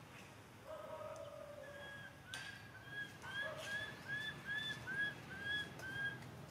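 An animal calling. First comes one held call of about a second and a half, then a run of short high calls, each rising and falling, at about two a second.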